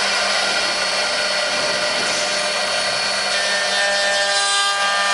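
Eight-spindle four-axis CNC wood router carving wooden blanks: the spindles run with a steady whine of several tones over the hiss of the cutters in the wood. About three seconds in, another set of tones joins in.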